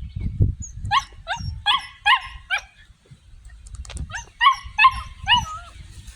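Puppies yipping: two runs of about five short, high-pitched yips, each run about a second and a half long, with a pause of about a second and a half between them.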